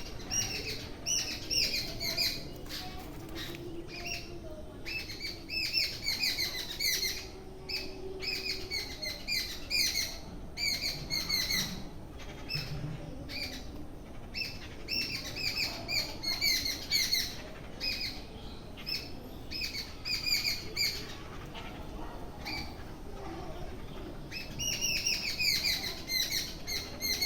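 Small birds chirping: quick runs of short, bright chirps, several a second, coming in bursts a few seconds apart.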